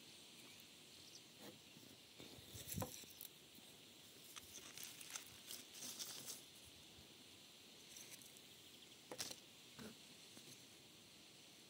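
Faint, scattered rustles and light ticks of grapevine leaves and tendrils being moved about, over a low steady hiss.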